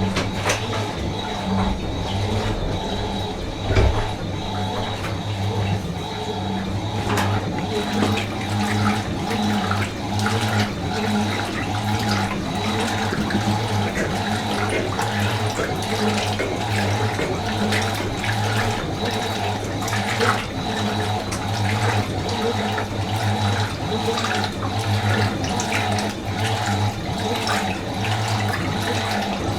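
Fisher & Paykel MW512 washing machine with water running into it, a steady rushing over a constant low hum.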